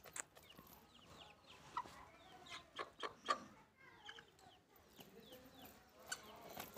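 Chickens clucking faintly, a scattering of short calls.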